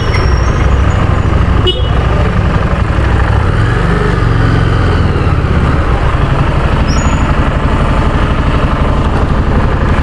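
Harley-Davidson Street Rod 750's V-twin engine running at low speed as the bike rolls slowly, with a steady low pulsing exhaust beat. The engine note swells briefly around four seconds in.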